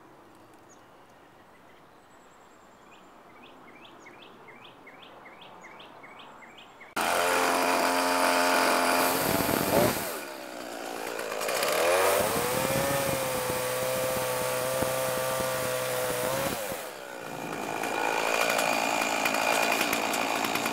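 A bird chirping repeatedly over quiet outdoor background, then about seven seconds in a Homelite 14-inch 35cc two-stroke chainsaw starts suddenly and loud, running at high revs as it cuts a tree branch into firewood lengths. It eases off twice, briefly dropping in pitch and level between cuts, then revs back up.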